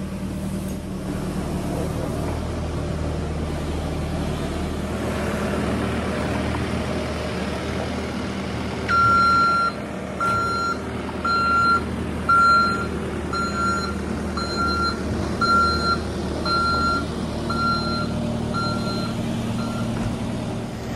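Skid steer's engine running steadily. About nine seconds in, its backup alarm starts beeping about once a second, roughly eleven beeps over ten seconds, as the machine reverses.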